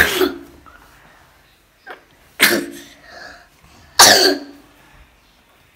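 A young child coughing three times, short and loud, into her fist.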